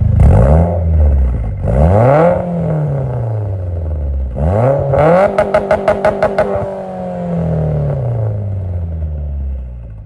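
Car engine free-revved three times, each rev rising sharply in pitch and falling back. The third rev is held high in a rapid stutter of sharp cuts before dropping away and fading.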